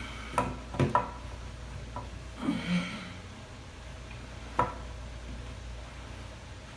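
A few sharp clicks and knocks of faucet fittings and screws being handled and fitted under a sink, with a short breath or grunt from the worker near the middle.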